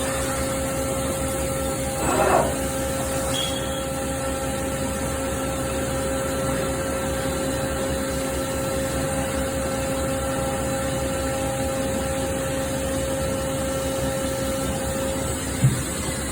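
CNC machining centre running with a steady mechanical hum and a few fixed whining tones. A short noisy burst comes about two seconds in, and a single knock near the end.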